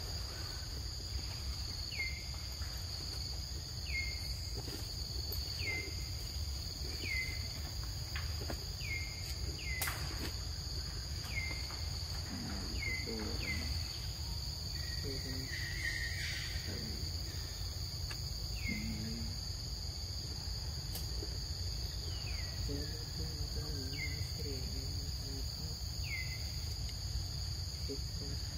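Forest ambience: a steady high insect drone, with a bird repeating a short falling call about every one to two seconds over a low rumble.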